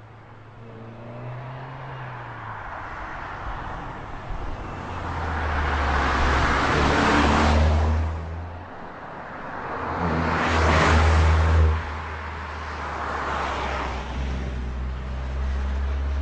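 Car engine pulling hard along a winding road, revving up and easing off, swelling to two close pass-bys a few seconds apart.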